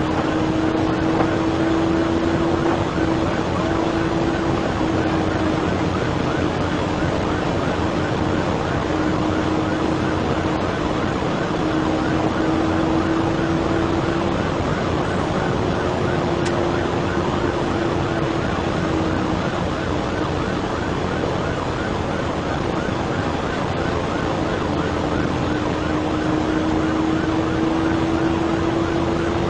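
Police car driving at about 120 mph: steady wind and road noise in the cabin, with a low drone that rises slightly in pitch as the car speeds up, then drops back and rises again near the end.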